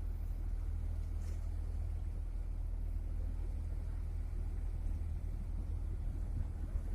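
Steady low rumble of a fishing boat's engine running as the boat heads out to sea.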